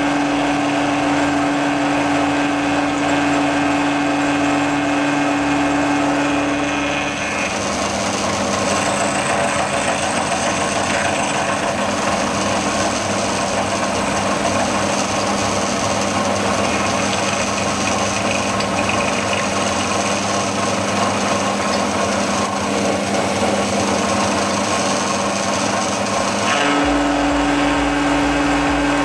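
Mill-drill running, its spinning cutter milling the side of a metal workpiece. A steady hum gives way to a rougher, noisier cutting sound about seven seconds in, and the hum comes back near the end.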